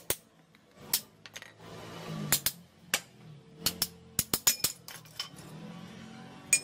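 Small hammer striking the steel pivot of old metal shears, about a dozen sharp metallic taps at an irregular pace with a quick run about four to five seconds in, driving out the pivot so the blades come apart.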